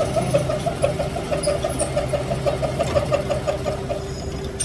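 A machine running steadily, with a fast even pulse of about seven beats a second over a low hum; the pulsing fades out about three and a half seconds in.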